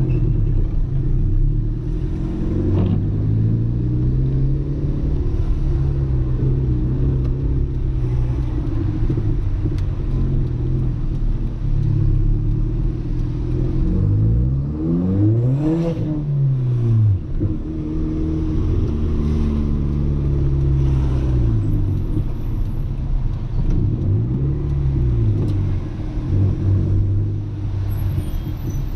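Audi A3 1.8T 20v turbocharged four-cylinder engine running under way, heard from inside the car. The revs hold for stretches and twice, in the second half, climb and drop sharply.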